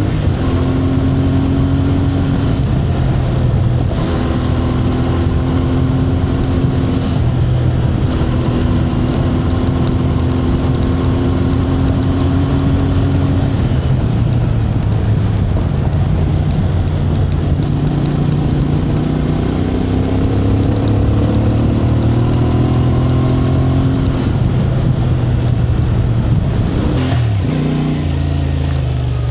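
A motor vehicle's engine running continuously, its pitch holding, then stepping and gliding up and down with the throttle, with an abrupt change about 27 seconds in.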